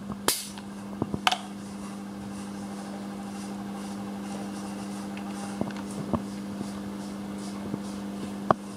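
A steady mechanical hum, as from a ventilation fan, with a handful of short, sharp metallic clicks and clinks scattered through; the loudest clicks come a second or so in and near the end.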